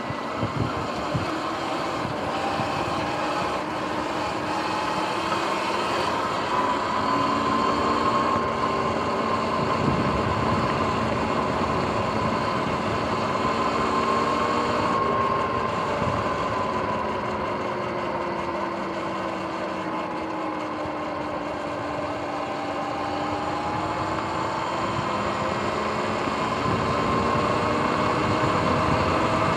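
Sur-Ron X electric dirt bike riding along a paved path: a motor and drive whine whose pitch slowly rises and falls with speed, over steady tyre and wind noise.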